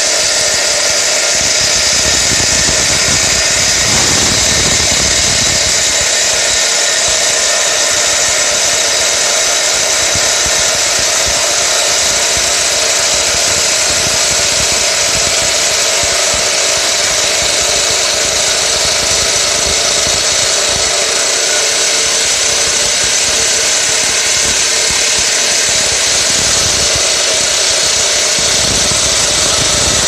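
Husqvarna corded electric power cutter's diamond blade running steadily as it grinds a groove through a concrete floor, with a constant high whine. Around four seconds in, a heavier low grinding comes in for a couple of seconds as the blade bites deeper.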